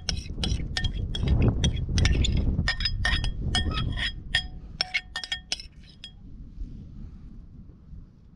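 Metal spoon clinking and scraping against a ceramic bowl as salad is spooned out onto a plate: a quick run of sharp taps, each with a short ring, stopping about six seconds in. A low rumble lies under the first half.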